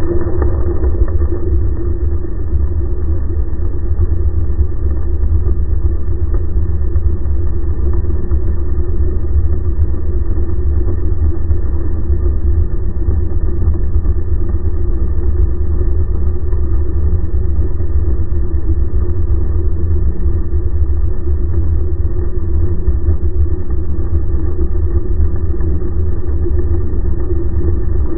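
Outboard motor running in gear with its propeller turning and churning a stream of bubbles, heard muffled from underwater through the camera housing: a steady, deep running sound with a low hum.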